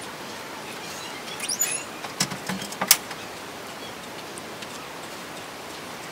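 Steady hiss of room tone, with a brief run of quick, high bird chirps and a few sharp clicks between about one and a half and three seconds in.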